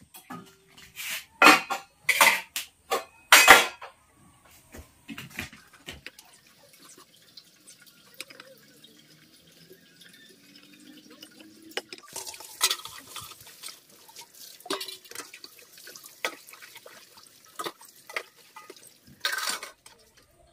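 Metal pots, bowls and utensils clattering and clinking with water splashing and dripping, as dishes are washed. A few loud sharp knocks in the first few seconds, then lighter scattered clinks over running water.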